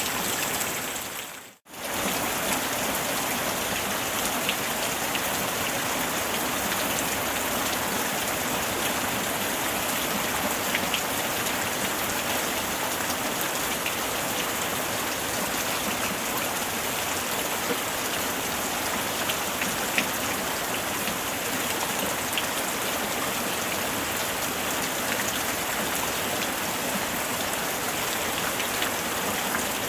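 Steady rain falling, a dense even hiss with scattered individual drop taps. It briefly fades out and back in about a second and a half in.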